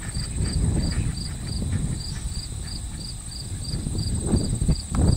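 Crickets chirping steadily, about three chirps a second, over a low rumble on the microphone, with a few faint knocks near the end.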